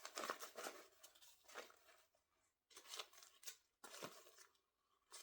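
Faint scratchy rustling and scraping as a Barbie doll and its dress are handled, coming in several short spells with quiet gaps between.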